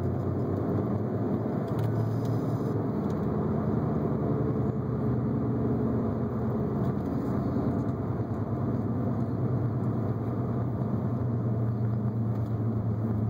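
Cabin sound of a 2003 Audi A4 Avant quattro with a turbocharged engine and tiptronic automatic driving along: a steady low engine and road drone.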